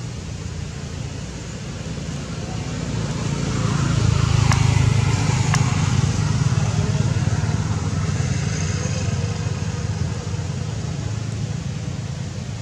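A motor vehicle's engine running steadily with a low hum, growing louder to a peak about four seconds in and then slowly fading away. Two sharp clicks come near the middle.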